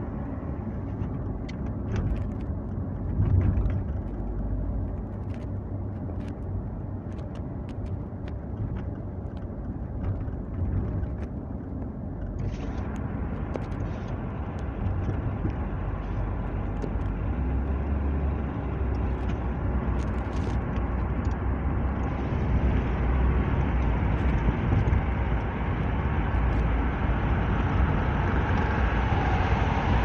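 Car driving on a road, heard from inside the cabin: a steady hum of engine and tyre noise with scattered small clicks in the first half. The noise grows brighter about twelve seconds in, and louder and brighter again about twenty-two seconds in.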